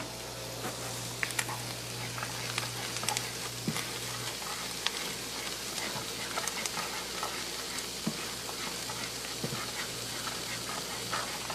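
A butter-and-flour roux sizzling in a skillet while a spatula stirs and scrapes through it, with many small crackles and ticks over a steady hiss; the flour is just starting to cook into the butter. A faint low hum stops about four seconds in.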